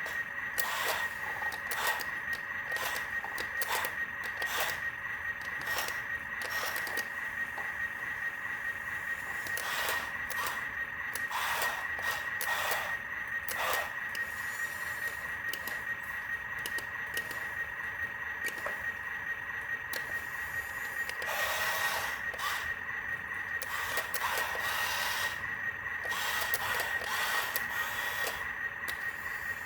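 Toy RC truck's small electric motor and plastic gears running with a steady high whine, with repeated scrapes and clicks from it working.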